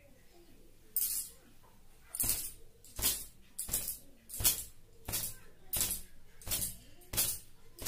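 Thin cotton gamcha towel swung and slapped against long wet hair to shake the water out: sharp swishing slaps. One comes about a second in, then a steady run of about three every two seconds.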